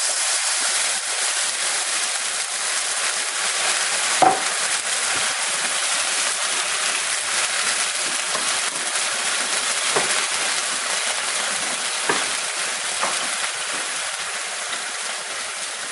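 Brandy poured into a hot frying pan of browned shiitake mushrooms sizzles loudly and steadily as the alcohol cooks off, easing slowly toward the end. A wooden spoon stirring the pan knocks against it a few times, first about four seconds in.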